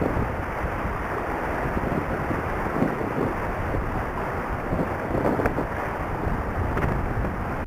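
Wind buffeting the microphone on the deck of a sailing catamaran under way: a steady, loud rushing noise with a heavy low rumble, mixed with water noise from the hulls moving through the sea.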